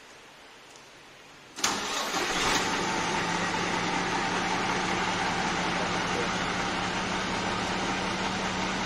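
Express coach bus diesel engine starting: it cranks briefly and catches about one and a half seconds in, then idles steadily with a constant low hum.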